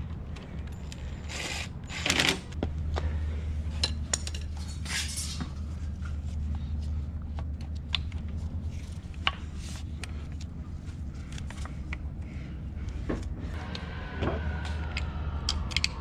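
Metal parts and hand tools clinking and clicking while motorcycle parts are handled and fitted. A couple of short rattling bursts come about two seconds in, over a steady low hum.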